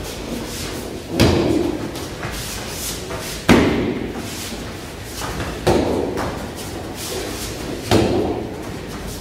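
Rear-leg front kicks landing on a hand-held kick pad: four solid thuds about two seconds apart, each with a short echo of a large hall.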